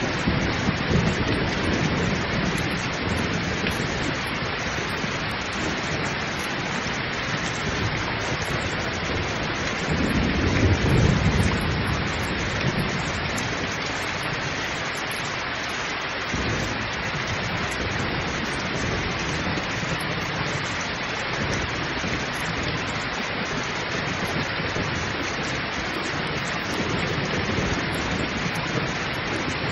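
Heavy rain pouring steadily, with low rumbles of thunder near the start and a louder rumble about ten seconds in.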